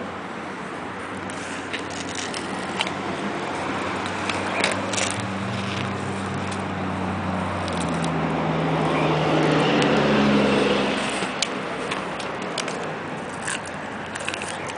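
Sulcata tortoise biting raw corn on the cob, the kernels cracking in scattered sharp clicks. Under it runs a motor-vehicle engine hum that grows louder about nine seconds in and then falls away.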